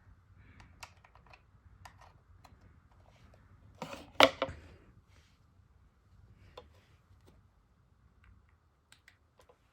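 Small clicks and taps of a smartphone and USB charging cable being handled and plugged into a charger, with a louder clack about four seconds in.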